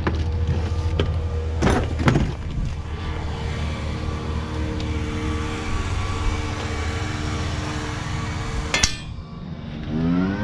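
An engine running steadily in the background, with a few metallic clinks from tools being handled. Near the end the engine sound drops away and then an engine speeds up with a rising pitch and settles at a higher steady note.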